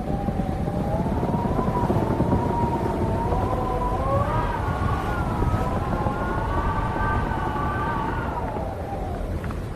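Wind howling: a wavering, pitched moan that climbs about four seconds in and sinks again near the end, over a dense low rush of wind.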